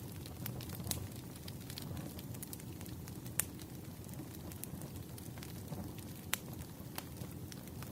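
Firewood crackling in a fire: a steady low rumble of flames with scattered sharp pops, two of them louder than the rest, about three and a half and six seconds in.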